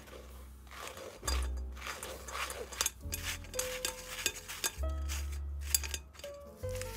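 Silicone spatula rubbing a flour mixture through a fine metal mesh sieve: repeated scratchy, rustling strokes. Background music with bass notes plays throughout.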